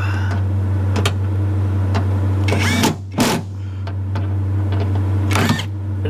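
Cordless impact driver run in a few short bursts, tightening the door latch mounting screws, over a steady low hum.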